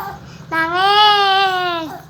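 A young child's drawn-out, high-pitched wail, about a second and a half long, its pitch rising slightly and then falling away.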